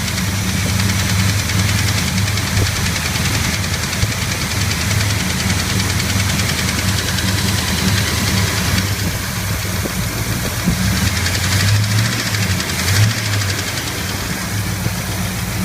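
Chevy 350 small-block V8 running warm just above idle, with an even ticking/knocking tap on top of the engine note. The noise comes only once the engine is warmed up, and readjusting the lifters has not cured it.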